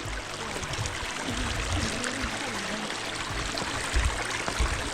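River water rushing over rocks, a steady even rush, with a few low thumps about four seconds in.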